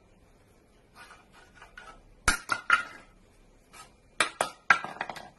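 Small house-shaped Christmas ornaments clinking and knocking against a wooden tabletop as cats paw at them: faint ticks, then a series of about six sharp clinks.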